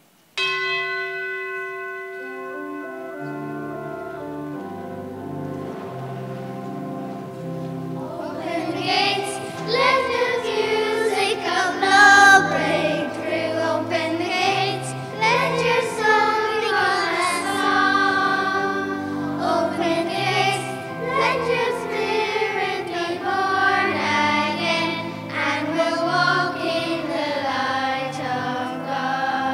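A hymn with accompaniment begins: sustained instrumental chords start suddenly, and about eight seconds in voices join in singing. This is the entrance hymn opening the Mass.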